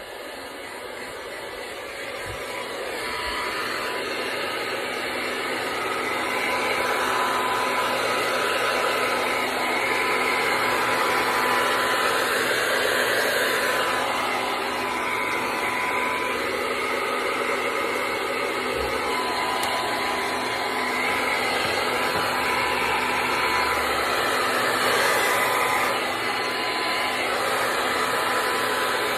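Hand-held blow dryer blowing steadily on a wet dog's coat, building up over the first few seconds and then swelling and fading slightly as it is moved about.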